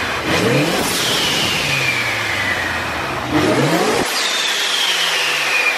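Centrifugal-supercharged Ford Mustang V8 blipped twice in free revs. After each blip the Tial blow-off valve vents with a rush of air, and the supercharger's high whistle falls away as it spins down.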